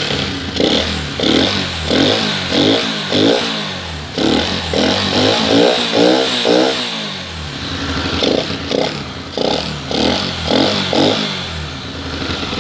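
Yamaha XTZ single-cylinder motorcycle engine blipped again and again, each quick rev rising and falling back toward idle, with a short lull partway through and a steady idle near the end. It runs with the air filter removed and the airbox open, which makes the engine note much louder.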